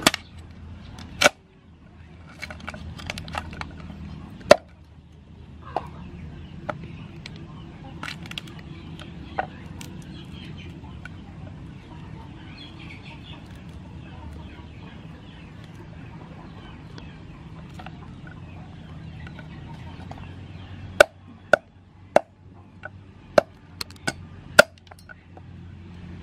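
Meat cleaver chopping a mud crab on a wooden chopping block: two hard chops in the first few seconds, lighter cracking of shell in between, and then a quick run of about eight chops near the end. Chickens cluck in the background.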